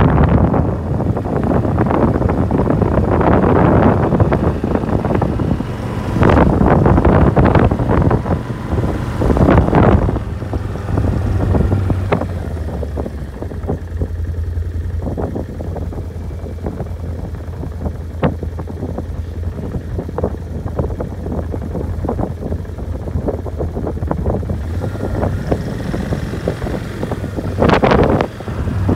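Wind buffeting the microphone in strong gusts, loudest over the first ten seconds, then easing to a steady low rumble, with another gust near the end.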